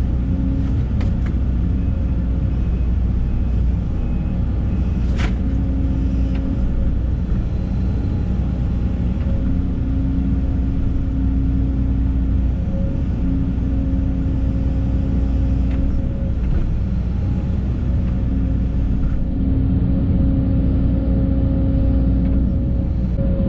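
Case CX210 excavator's diesel engine running steadily under work, with a steady tone that comes and goes every few seconds as the hydraulics are worked, and one sharp click about five seconds in.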